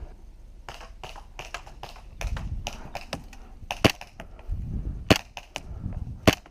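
Airsoft guns firing in close quarters: scattered fainter snapping shots, then three loud single shots about a second apart near the end. Low dull thumps fall in between.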